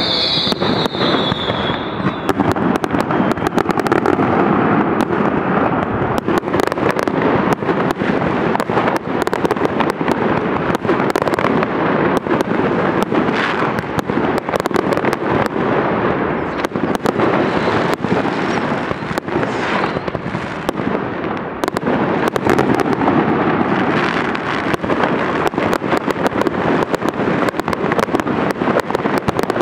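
A fireworks display: a dense, continuous barrage of bangs and crackling shell bursts. A high whistle falls in pitch during the first two seconds.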